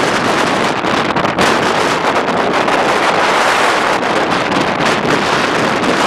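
Strong wind blowing hard, a loud steady rushing noise with wind buffeting the microphone.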